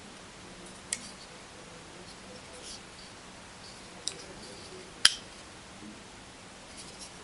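Sharp clicks of a Hinderer XM-18 folding knife's blade and lock as it is worked open and shut in the hand: three clicks, about one, four and five seconds in, the last the loudest, with faint handling rustles between.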